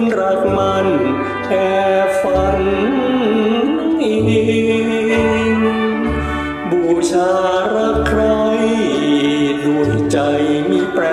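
Music: the backing track of a Thai song, a melodic lead line over a recurring bass.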